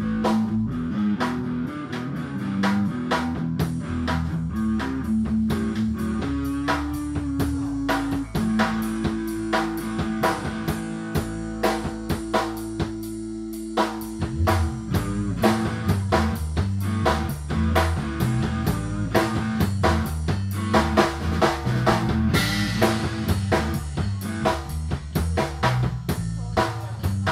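Metal music with a busy drum kit and guitar, with a few long held low notes about a third of the way through.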